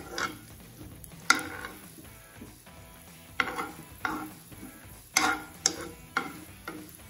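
A metal spoon scraping and stirring chopped nuts as they roast in a non-stick pan: a run of uneven scrapes, about eight in all, louder in the second half, over a faint sizzle.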